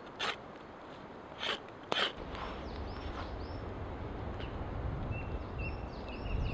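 A knife shaving thin branch wood in a few quick strokes. After about two seconds it gives way to a steady low wind rumble with short high bird chirps.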